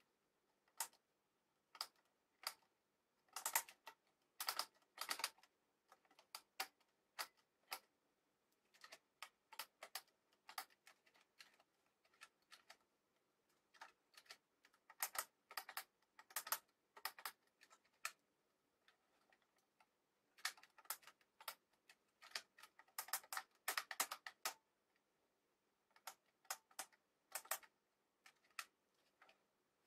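Pattern-selection dial of a compact electric sewing machine clicking through its detents as it is turned by hand, in irregular runs of sharp clicks.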